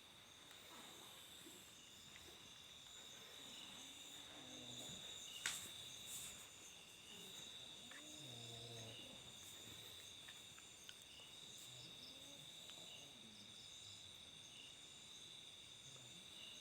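Faint, steady chirring of crickets, with a few soft low pitched sounds and one sharp click about five and a half seconds in.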